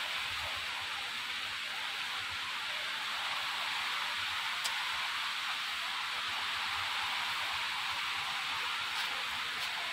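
A steady, even hiss throughout, with a few faint ticks, one about halfway through and two near the end.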